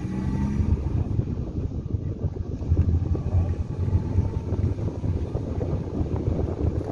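A vehicle on the move, heard from inside: a steady low rumble of engine and road noise.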